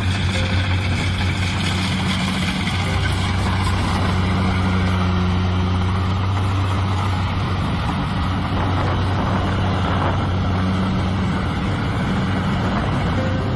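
Diesel engine of Kubota rice-field machinery running steadily at a constant speed, a low even hum.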